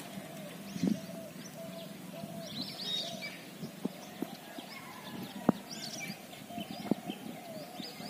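Birds chirping and calling, over a short steady-pitched call repeated again and again, with scattered sharp clicks that fit footsteps on a brick path.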